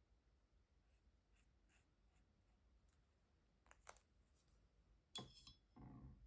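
Faint sounds of a water-based marker working on watercolour paper: soft scratching strokes and small ticks, with a sharper click a little after five seconds in, followed by a short rustle.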